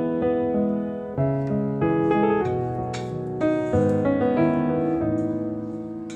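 Background piano music: a gentle melody of struck notes and chords, each fading after it is played.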